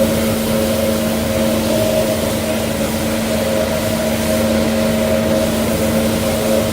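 Tractor-driven feed mixer running at a steady speed: an even mechanical drone with a constant hum that holds one pitch and does not change.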